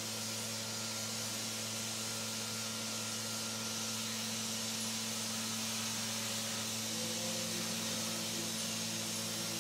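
A steady low machine hum with a constant hiss, like a fan or extractor running. Faint music comes in about seven seconds in.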